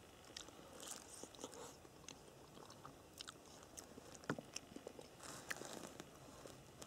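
Faint chewing of a soft, mushy mouthful of canned mashkichiri (beef, rice and mung beans), with a metal spoon clicking against the tin can several times, most sharply about four and five and a half seconds in.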